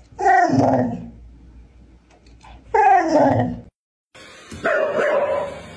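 A dog gives two drawn-out vocalizations, each falling in pitch and lasting under a second, like it is trying to talk. After a short break, a robot vacuum hums along while a dog barks at it.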